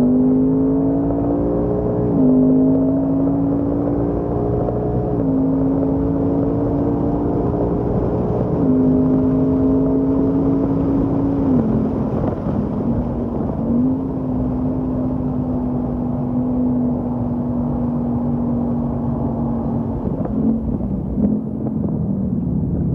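Ford Mustang Mach 1's 5.0-litre V8 heard from inside the cabin under load on track, its note stepping at each upshift about two, five and nine seconds in. The note dips briefly around twelve seconds, then holds and slowly falls toward the end.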